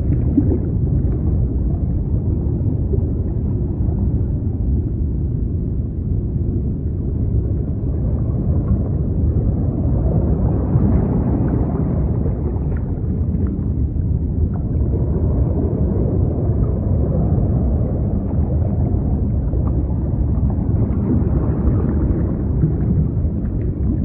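Deep, muffled sea noise: a continuous low rush of surf with no high hiss, swelling gently about halfway through and again near the end.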